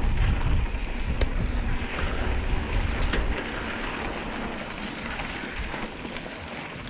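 Mountain bike riding down a dirt singletrack: wind buffeting the camera microphone over the hiss of the tyres on the dirt, with a few sharp clicks of the bike rattling over bumps. The wind rumble drops off about three seconds in.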